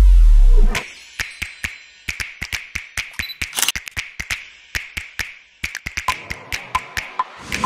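Electronic background music: a deep bass sweep falls and cuts off under a second in. A sparse run of sharp clicks and taps follows, several a second.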